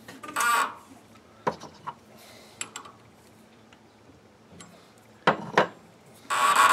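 A 6-32 bottoming tap being turned by hand into brass, cutting dry: it squeals in short bursts with small clicks and ticks between, the loudest squeal coming near the end.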